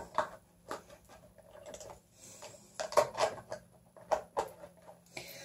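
Makeup items being handled on a counter: an irregular run of light clicks and knocks, as of lipstick tubes and caps being picked up and set down.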